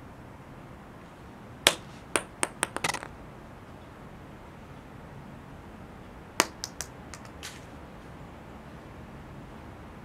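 Acorns dropping onto stone paving: two drops, one about two seconds in and one about six seconds in, each a sharp click followed by a few quicker, quieter bounces.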